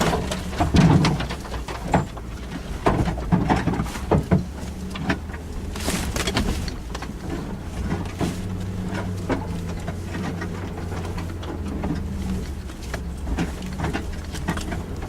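Suzuki Jimny engine running at low, steady revs off-road, with frequent knocks and rattles on top, most of them in the first half.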